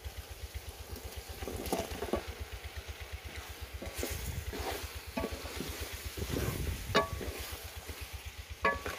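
Pieces of meat sizzling as they fry in hot ghee and tomato in a large aluminium pot, with a wooden spatula scraping and knocking against the pot as the meat is stirred.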